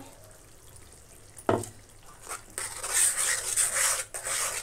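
Steel spatula stirring and scraping spinach paste around a metal kadai. There is a single knock about a second and a half in, and the steady scraping starts about halfway through.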